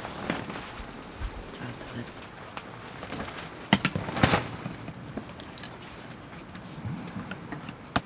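Utensil and cookware clinks: a few sharp clinks a little under four seconds in as a ladle serves from a stainless steel frying pan into bowls, over a steady low hiss.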